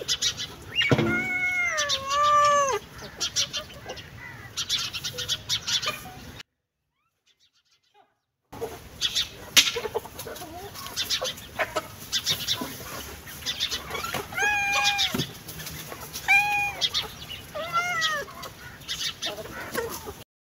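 Domestic cat meowing: a long drawn-out meow about a second in, then, after a break of silence, three shorter meows near the end, each rising and falling in pitch. Short clicks sound around the calls.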